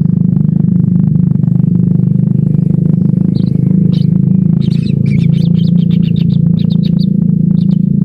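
Kingfisher nestlings in their burrow giving high, rapid chirping calls, starting with a few single notes a few seconds in and running into quick strings of chirps. Under them runs a loud, steady low engine-like drone, the loudest sound throughout.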